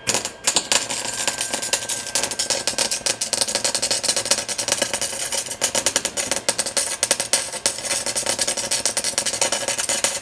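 MIG welding arc crackling in a fast, even stream of sharp snaps as a weld bead is run; the arc catches right at the start.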